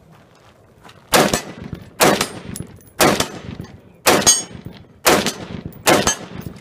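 Handgun shots fired at a steady, deliberate pace, six sharp reports about a second apart, each trailing off in an echo.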